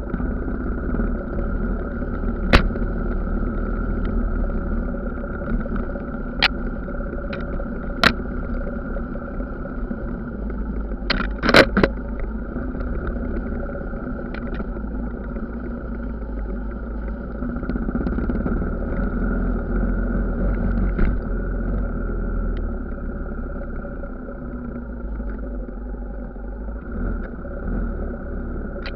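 Dirt bike engine running steadily at low speed on a rough trail, with a few sharp knocks and clatters as the bike jolts over ruts and stones, the loudest cluster near the middle.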